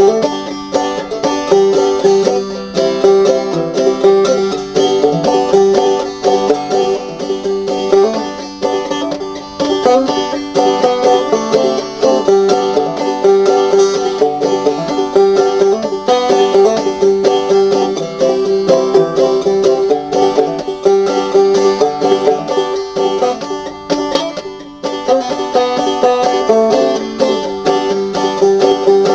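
Five-string banjo played clawhammer (frailing) style: a steady run of plucked notes with a repeated ringing note throughout, broken by a brief pause about three-quarters of the way through.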